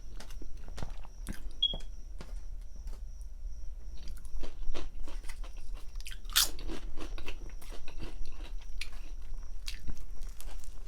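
Close-miked chewing of a grinder sandwich: irregular wet mouth clicks and soft crunching, with one louder crunch about six seconds in.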